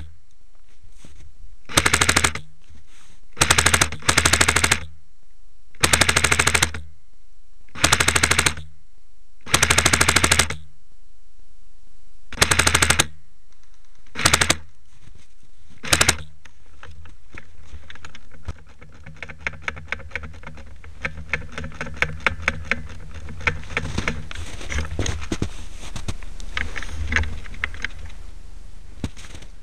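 Airsoft electric gun firing short bursts of full-auto, nine bursts in the first sixteen seconds, each with a buzzing motor and gearbox underneath. From about two-thirds of the way in, quieter scattered clicks and snaps take over.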